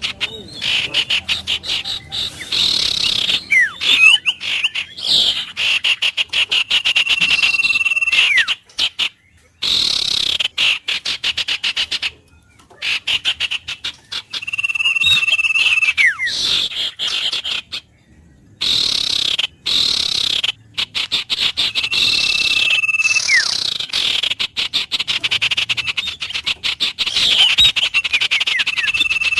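Wild birds calling, with held whistle notes and quick falling whistles, over a rapid pulsing animal chorus. The sound drops out briefly a few times.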